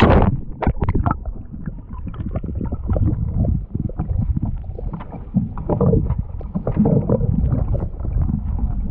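A splash as the camera goes under the sea, then muffled underwater sound: low rumbling water movement with scattered dull knocks.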